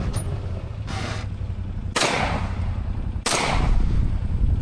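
12-gauge shotgun shots: two loud reports about a second and a half apart, each with a short ringing tail, and a fainter shot about a second in. A side-by-side's engine runs underneath.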